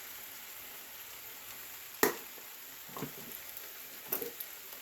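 Stew ingredients sizzling steadily in a pot on the stove, a thin high hiss, with one sharp click about two seconds in and a couple of fainter knocks after it.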